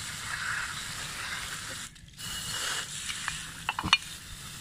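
Water spraying from a garden-hose nozzle onto a small metal motorcycle part as it is scrubbed with a brush. The spray breaks off briefly about two seconds in, and a few sharp clicks and knocks from the part and brush come near the end.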